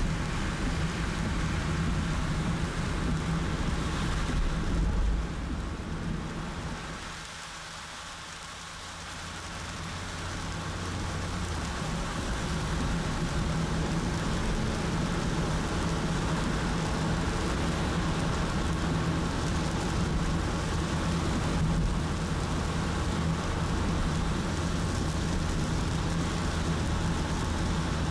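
Heavy rain pelting a moving car, a dense steady hiss over a steady low road and engine hum. The rain noise drops away for a few seconds about a quarter of the way in, then builds back to full strength.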